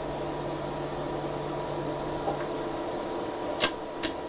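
Steady whirring hum of a powered-on Geeetech A20 3D printer's fans. A low hum under it stops about two and a half seconds in, and two sharp clicks come near the end.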